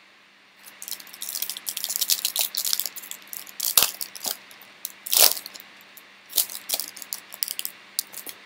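Foil trading-card pack wrapper crinkling and tearing open, with cards sliding out: a dense run of sharp crackles and rustles, with two louder snaps around four and five seconds in.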